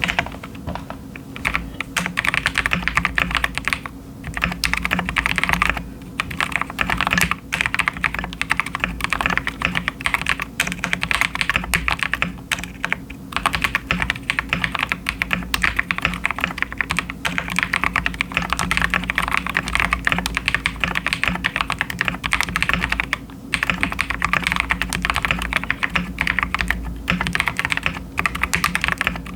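Fast, continuous typing on a KiiBOOM Phantom 81 gasket-mounted acrylic mechanical keyboard fitted with KiiBOOM Crystal switches and crystal keycaps, with a few brief pauses.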